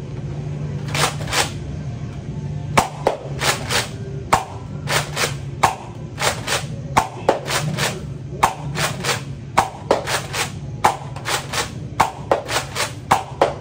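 A Nerf Rival Artemis pump-action foam-ball blaster being pumped and fired over and over: a rapid run of sharp clacks, often in close pairs, about two to three a second, over a steady low hum.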